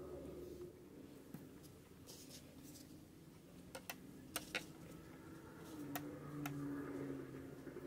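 Quiet handling noises from crafting materials being picked up and turned over: a few light clicks and taps, four close together about halfway through and two more near the end, over a low steady background hum.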